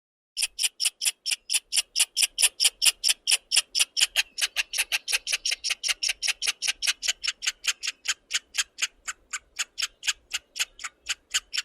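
An animal's call: a long, even series of short, sharp, high-pitched notes, about five a second, growing a little weaker in the second half.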